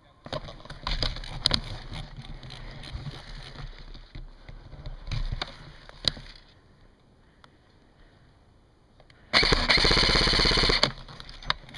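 Scattered clicks, knocks and handling noise from movement on wooden boards. Then, about nine seconds in, a loud full-auto burst from an airsoft electric gun, a rapid even rattle lasting about a second and a half.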